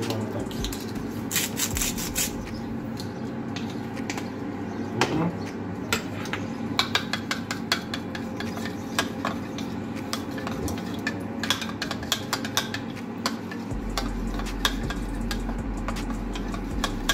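A metal spoon stirs a mustard, lemon and oregano sauce in a small bowl, clinking against the bowl's sides with many small, irregular clicks.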